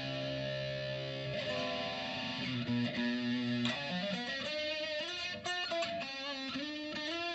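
Distorted electric guitar played through a STRICH analog flanger pedal with its colour (feedback) knob turned down: held notes and chords with a slow, wavering sweep in the tone, clearer in the second half.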